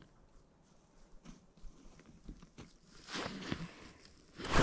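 Handling noise from clothing and ice-fishing gear: faint scattered clicks and rustles, a louder rustle about three seconds in, and a loud crunchy rustle near the end.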